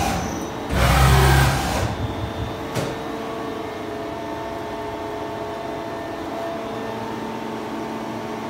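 CNC lathe running with a steady machine hum carrying several fixed tones. About a second in, a loud rushing noise lasts about a second, followed by a sharp click near the three-second mark.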